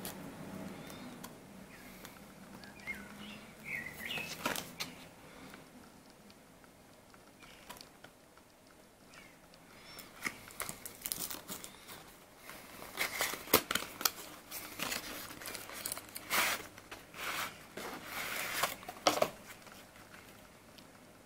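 Small cardboard box being turned over and opened by hand, with irregular rustling, scraping and sharp clicks of the packaging and crinkling plastic, growing busier about halfway through.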